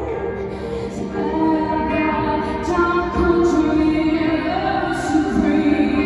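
Rock band playing through a stadium PA, heard from the stands: a female lead singer holds long notes over the band.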